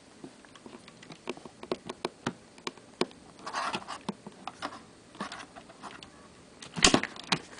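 Small plastic clicks, taps and scrapes as fingers work the battery release latch and slide the battery out of an HP Mini 110 netbook. There is a scraping stretch midway and a cluster of sharper, louder clicks near the end.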